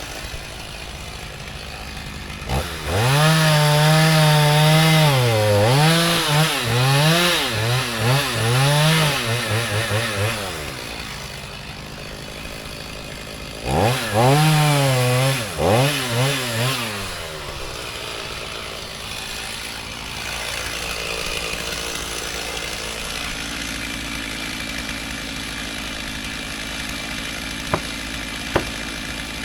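Two-stroke chainsaw revving hard in two long bursts, its pitch repeatedly dipping and climbing, with a quieter gap between them. It then drops back to a low steady running sound, and two sharp clicks come near the end.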